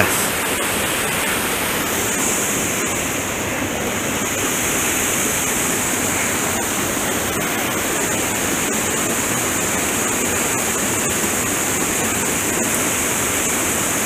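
Small cascade on a mountain trout stream pouring into a pool: steady rushing water.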